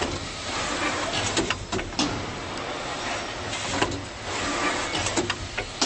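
Automatic servo-driven goblet screen-printing machine running steadily, with sharp clicks and knocks from its mechanism at irregular moments, several in the second half.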